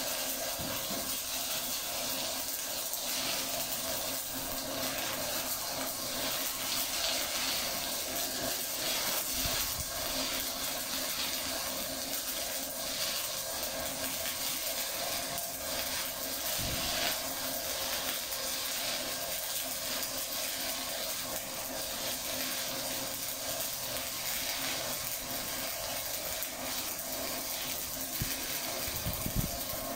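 Stick (shielded metal arc) welding arc crackling and sizzling steadily as a weave bead is run on flat plate.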